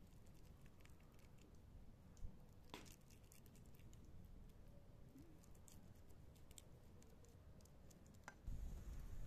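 Faint soft clicks and squelches of a plastic dough scraper pressing and smoothing raw minced lamb in a frying pan, over a low background hum that grows louder near the end.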